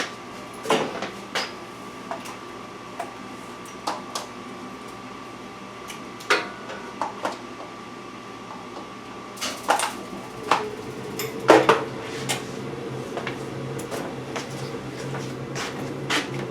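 Light clicks and knocks from handling a Pfaff 1245 industrial sewing machine and its plug, then about ten seconds in a steady low hum starts as the machine's table motor is switched on to check that it works.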